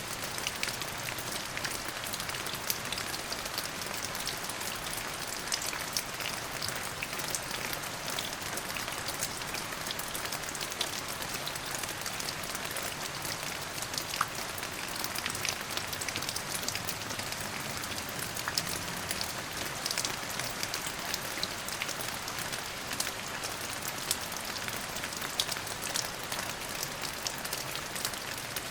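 Steady rain falling on a surface, an even hiss with many separate drops pattering through it.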